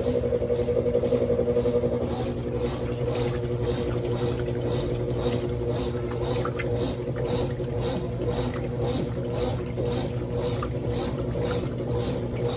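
Brastemp washing machines running: a steady motor hum with water sloshing in a regular swish about twice a second.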